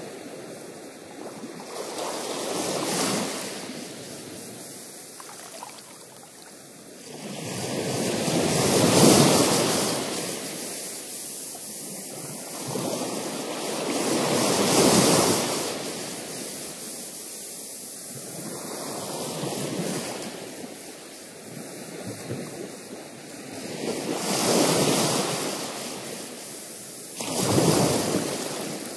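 Ocean surf breaking on a rocky shore, a steady wash that swells loud with each breaking wave, about every five or six seconds.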